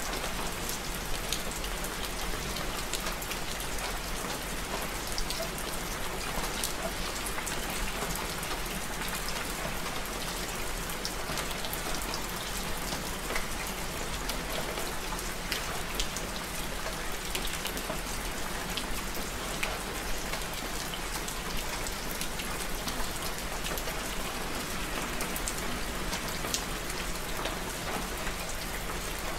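Steady rain falling at night, a constant hiss of rain with many small drops pattering and ticking on nearby surfaces.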